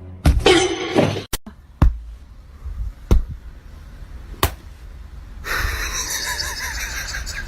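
A loud rustling burst, then four sharp knocks about a second apart, followed by a few seconds of steady noisy hiss.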